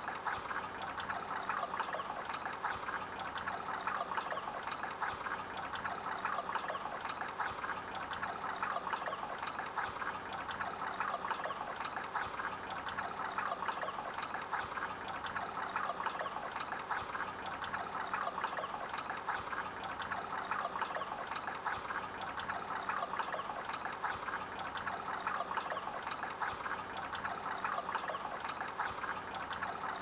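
Small solar cascade garden fountain: water trickling and splashing steadily from a tipped bucket into a tree-stump basin and on down into water-filled buckets.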